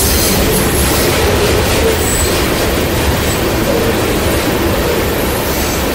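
Covered hopper cars of a freight train rolling past close by: a steady rumble of steel wheels on rail, with a couple of brief faint high wheel squeals about two and three seconds in.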